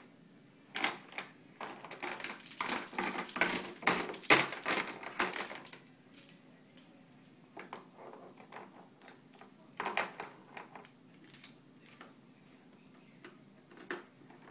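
A baby's handheld toy rattle being shaken, a quick clatter of small clicks for several seconds, then only a few scattered rattles and taps.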